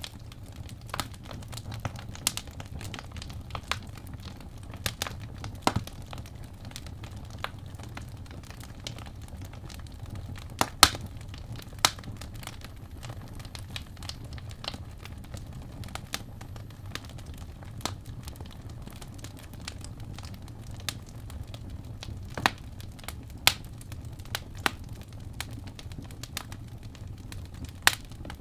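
Fireplace crackling: irregular sharp pops and snaps, a few of them louder, over a steady low rumble.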